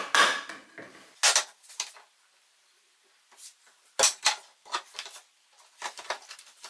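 Wooden staves knocking and clattering against each other and the table as they are picked up and set in place: a string of scattered sharp knocks with quiet gaps between, the loudest at about one second and four seconds in.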